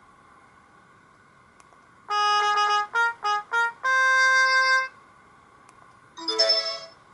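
Sony Ericsson K200i ringtone: a short synthesized, brass-like melody of one long note, three quick notes and a long held note. About a second later comes a brief buzzy, warbling chirp.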